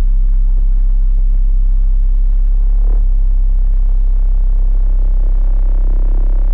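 Electronic music: a loud, deep synthesizer bass drone held steady, its upper tones shifting about three seconds in.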